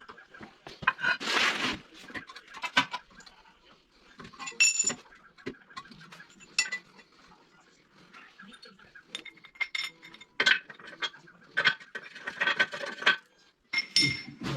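Metal parts and hand tools clinking and clanking against each other: a string of irregular sharp knocks, some with a brief metallic ring.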